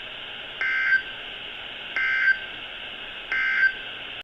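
Emergency Alert System end-of-message signal: three short bursts of warbling two-tone digital data (the SAME 'NNNN' code) about a second and a half apart, over steady radio hiss. It marks the end of the severe thunderstorm warning broadcast.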